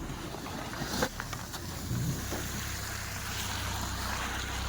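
Car engine running as the car is driven out of deep snow, a low drone that strengthens about two seconds in, with a short knock about a second in.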